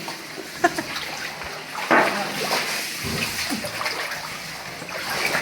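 People wading through shallow cave water, with splashing and sloshing steps; the loudest splash comes about two seconds in.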